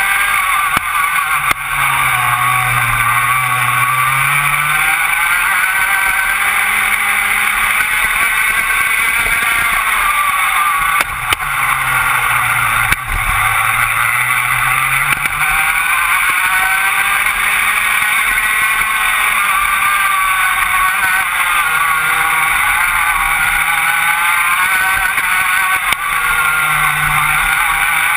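Rotax Max 125cc two-stroke kart engine at racing revs, heard from on board the kart. Its pitch keeps falling and climbing as the revs drop and pick up again, with two deeper dips, a couple of seconds in and about halfway through.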